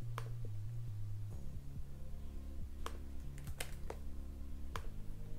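A few sharp, separate clicks from a computer mouse and keyboard, over quiet background music of low held notes.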